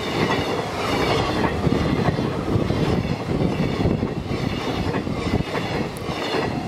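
Freight train of Koki container flat wagons behind an EF81 electric locomotive passing close by, its steel wheels clattering over the rail joints in a steady, continuous rumble.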